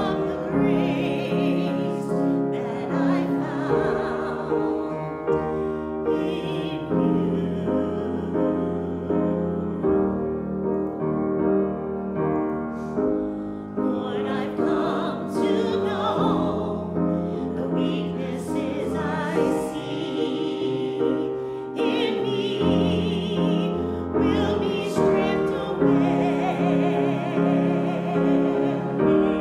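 A woman singing a slow worship song, accompanied by piano.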